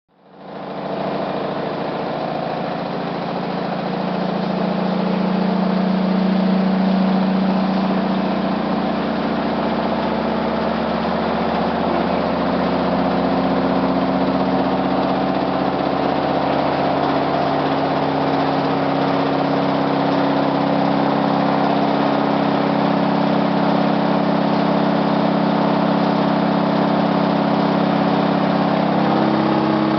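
Hotpoint WT761 washing machine drum spinning on worn-out drum bearings: a loud, steady mechanical drone that builds over the first few seconds and then holds, the sign of failed drum bearings.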